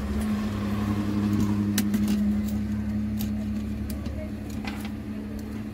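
Hot air rework station's blower running with a steady pitched hum, with a few faint light clicks.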